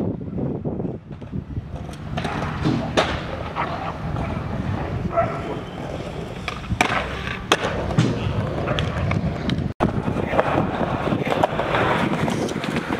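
Skateboard wheels rolling with a steady rumble over street pavement, broken by several sharp clacks of the board hitting the ground. The sound cuts out for an instant about ten seconds in.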